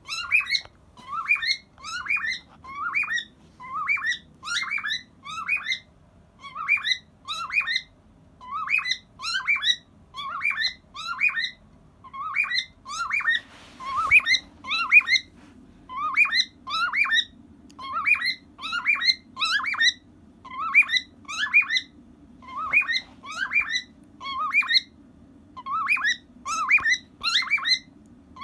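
Male cockatiel singing: short rising whistled notes in little clusters, repeated about once a second without a break.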